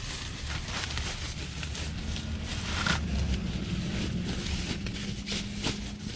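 Bivy sack shell fabric rustling and crinkling as it is rolled up, over a low rumble, with a steady low hum coming in about two seconds in.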